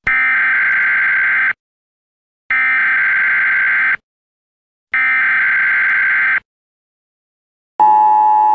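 Emergency Alert System tones: three identical bursts of warbling data tones, each about a second and a half long with a second of silence between. Near the end the steady two-tone attention signal begins, the alarm that comes before an emergency broadcast announcement.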